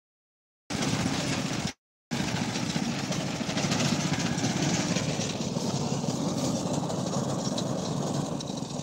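A steady, engine-like running noise with a low hum under a hiss, broken by the audio cutting out completely at the start and again briefly just before two seconds in.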